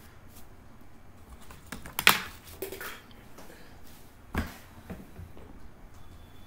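A few sharp clicks and knocks over a low room background, the loudest about two seconds in and another a little after four seconds.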